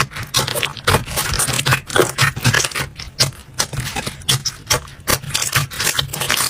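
Slime being squeezed and worked by hand, giving a dense, irregular run of crackles, pops and scraping clicks, several a second.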